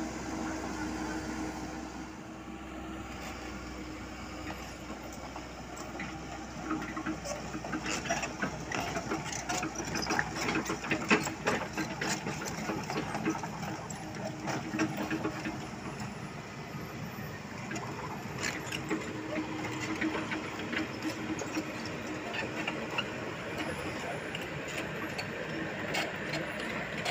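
Diesel engines of a Komatsu PC78US mini excavator and an Isuzu NMR 71 dump truck running. A dense, rapid mechanical clatter builds from a few seconds in, is loudest around the middle as the excavator travels on its tracks, and eases off later.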